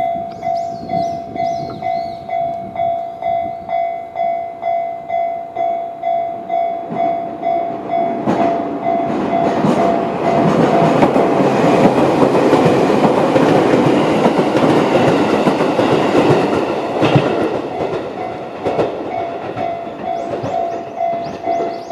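Electronic level-crossing alarm in the JR standard tone, pulsing about twice a second. About eight seconds in, a 211-series electric train passes and its wheels clack over the rail joints, drowning the alarm for about ten seconds. The alarm is heard again as the train moves away.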